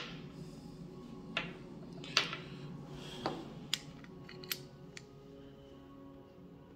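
Small sharp clicks and taps, about six spread over several seconds, the strongest a little over two seconds in. They come from a replacement magazine catch being handled and tried against a Para Ordnance Warthog pistol frame, a part that looks slightly too big to fit.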